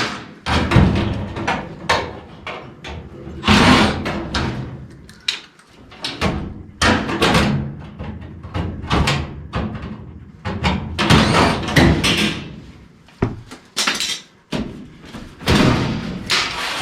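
Irregular clanks, knocks and scrapes of sheet-metal furnace parts being handled and worked on during a heat exchanger replacement.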